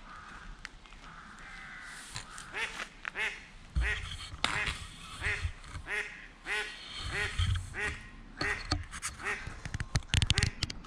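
Duck quacking in a long run of short calls, about two a second, with occasional low thumps.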